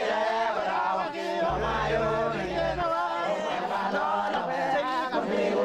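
Papuan porters and villagers shouting and chanting together, many men's voices overlapping in a loud group call that announces the party's arrival.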